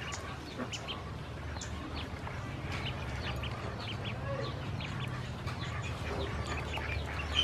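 A brood of ducklings peeping: many short, high calls overlapping irregularly, over a low steady hum.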